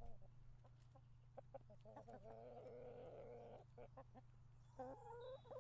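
Near silence: a low steady hum under faint, short pitched animal calls, one drawn out for about a second in the middle.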